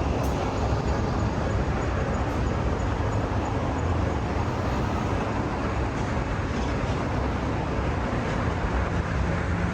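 Steady rumbling noise of a passing vehicle, even in level throughout.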